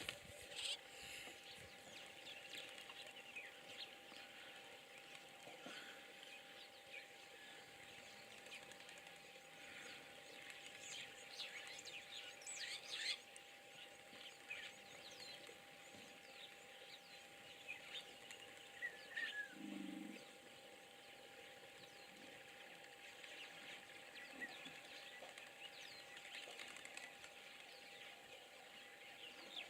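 Quiet natural ambience with faint, scattered bird chirps and calls and a faint steady tone. A single brief low sound comes about two-thirds of the way through.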